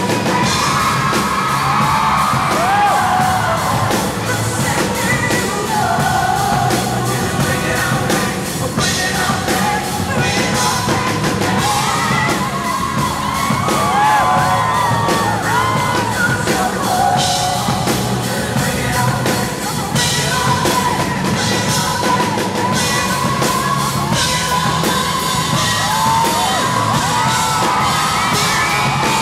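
Live pop-rock performance: a male lead singer singing into a microphone with sliding, belted vocal runs over a full band with a steady drum beat.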